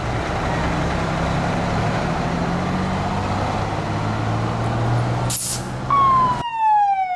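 Vintage Crown fire engine's engine running as it drives slowly past, with a brief air hiss about five seconds in. Near the end a siren winds down, falling steadily in pitch.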